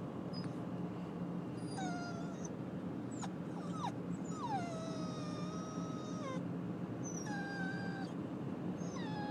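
Frightened puppy whining in a moving truck's cab: about five high whimpers that slide down in pitch, one drawn out for about two seconds near the middle, over the steady low hum of the truck.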